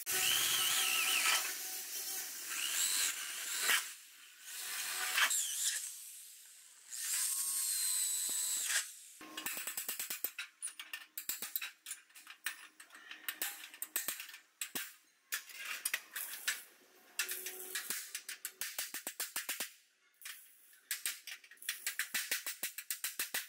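An angle grinder runs against the steel body, its whine winding up and down. From about ten seconds in it gives way to rapid hammer blows, several a second, on a chisel set against a sheet-steel front panel.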